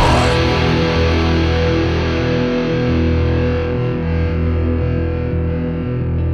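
Instrumental passage of a rock song with no vocals: distorted, effects-laden electric guitar holding ringing notes over sustained bass notes.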